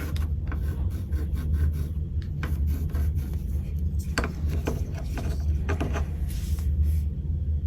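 Rubbing and scraping with scattered sharp clicks over a steady low hum.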